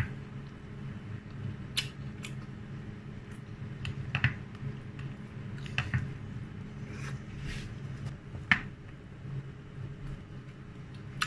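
Close-up eating sounds of someone eating crispy fried dried milkfish with rice by hand. Quiet chewing is broken by about six short, sharp crunches and smacks spread through, over a steady low hum.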